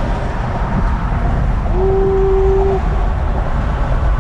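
Steady road and engine rumble inside the cabin of a moving Audi A4, with a single held tone lasting about a second near the middle.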